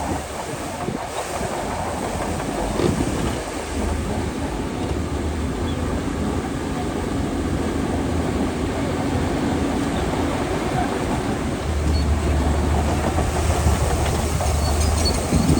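Shantui DH17C2 crawler bulldozer working: its diesel engine running steadily under load, with the clatter of the machine's running gear.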